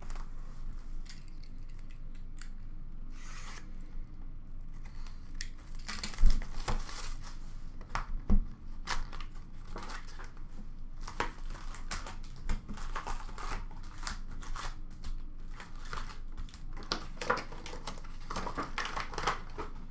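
An Upper Deck Series 1 hockey card box being torn open and its foil packs handled: scratchy tearing and rustling of cardboard and crinkling foil wrappers, with many small clicks. Two sharp knocks stand out, about six and eight seconds in.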